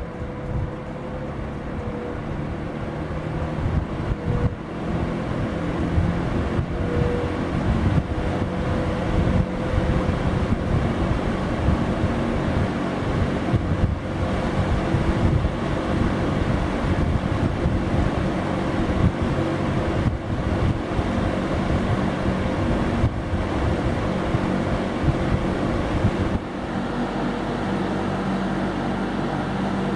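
Berns Air King PR20P 20-inch two-speed box fan running, a steady rush of air with a faint hum from the motor, and its airflow buffeting the microphone with a gusty rumble. The sound changes and drops slightly about three-quarters of the way through.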